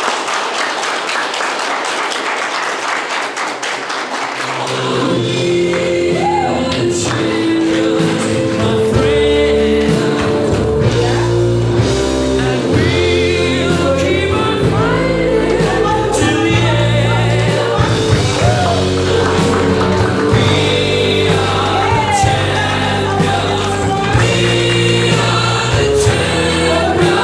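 Audience clapping for the first few seconds, then a song with singing over sustained chords comes in about five seconds in and continues.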